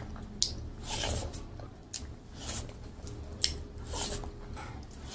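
Close-miked eating sounds of a person chewing a handful of rice and mashed vegetables eaten by hand: short smacking bursts every half second to a second, with two sharp clicks.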